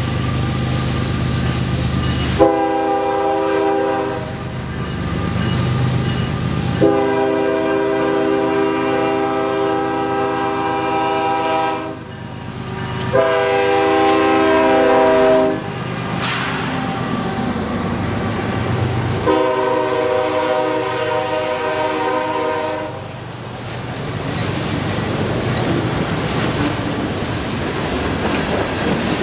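Freight locomotive air horn (Union Pacific GE AC45CCTE) sounding the grade-crossing signal: long, long, short, long, several pitches at once. The locomotive's engine and the freight cars' wheels clicking over rail joints carry on under the horn and after it as the train passes.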